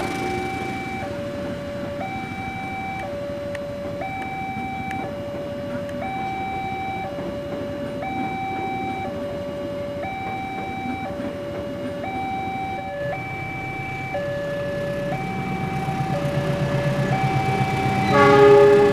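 Railroad level-crossing warning alarm sounding a two-tone electronic chime, alternating high and low about once a second, over the rumble of a passing train that grows louder in the second half. Near the end a locomotive horn sounds briefly and loudly.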